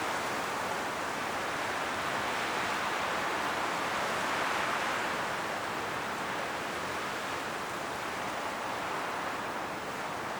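Strong wind blowing through forest trees, the leaves rustling in a steady rush that swells in a gust about halfway through and eases off near the end.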